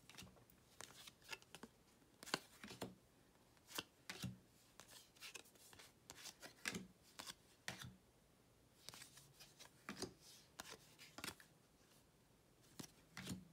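Faint flicks and slides of Donruss basketball trading cards as a stack is thumbed through card by card, coming in quick irregular bunches with short pauses.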